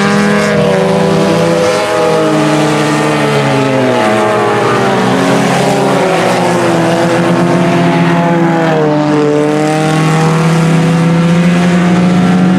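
Four-cylinder IMCA Sport Compact race car engines running hard on a dirt oval. The pitch drops and climbs again a few times, about two, four and nine seconds in.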